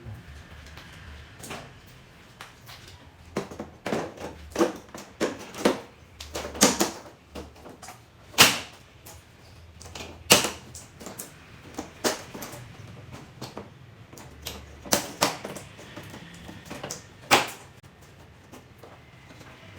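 Irregular sharp clicks and taps of small hard objects being handled, coming unevenly, with the loudest about eight and ten seconds in.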